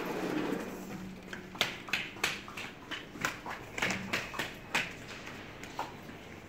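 A sliding glass door rolling open, then a child's quick footsteps in flat shoes on a tiled floor, about a dozen sharp, uneven taps.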